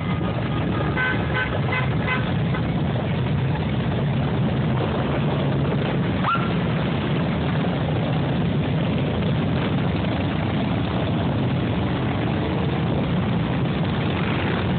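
A procession of many large touring motorcycles running past in a steady, continuous stream of engine noise. A few short horn toots sound in the first couple of seconds, and a brief rising whistle-like tone comes about six seconds in.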